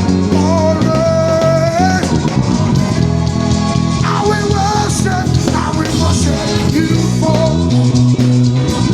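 Gospel worship band playing, the electric bass holding long low notes under the band, with voices singing a melody over it.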